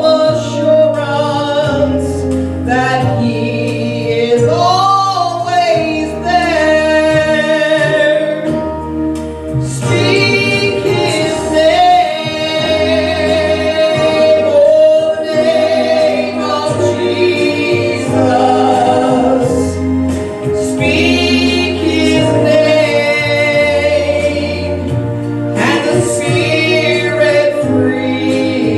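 Gospel song: voices singing together with vibrato over an instrumental accompaniment with a stepping bass line.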